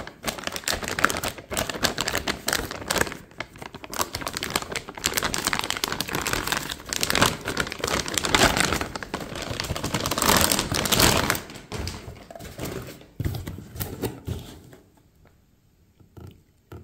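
Clear plastic bag crinkling and rustling as it is torn open and pulled off a car stereo head unit. The rustling dies away a few seconds before the end, leaving a few light taps.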